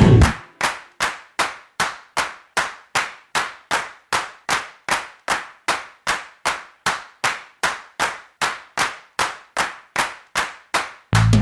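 A steady, evenly spaced beat of sharp percussive clicks, about two and a half a second, each dying away quickly. It cuts off abruptly as music comes back in near the end.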